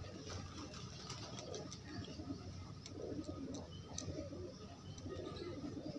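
Domestic pigeons cooing, several low warbling coos with faint scattered clicks.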